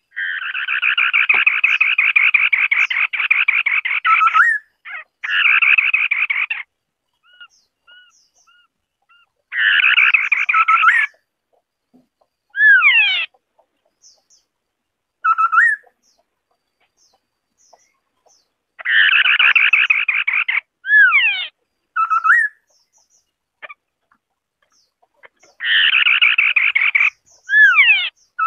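White-browed scimitar-babbler song: bursts of fast, harsh chattering lasting one to four seconds, alternating with short whistled notes that curve downward and a few quick sweeping whistles.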